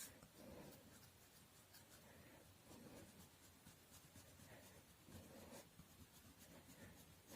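Faint scratching of colour strokes rubbed lightly onto paper, repeated at an uneven pace.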